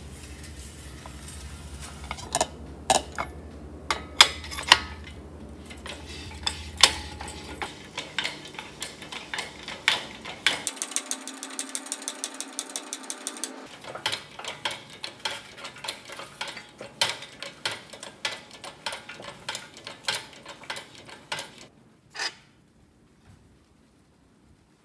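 Socket ratchet wrench clicking in quick runs, mixed with sharp clanks of metal tools and parts. The clicking stops near the end.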